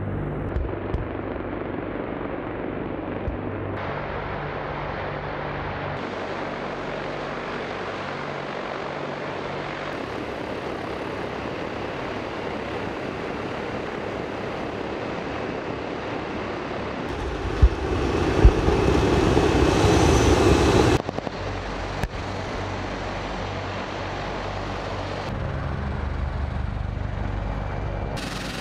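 Zubr-class military hovercraft running, a steady roar of its gas turbines and big ducted propellers with a low hum under it. The sound jumps at several cuts and is loudest about two-thirds of the way through. A heavier low engine rumble comes in near the end.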